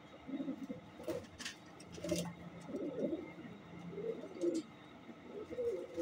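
Racing pigeons cooing, a series of low coos repeated five or six times, with a couple of brief sharp rustles or clicks about one and two seconds in.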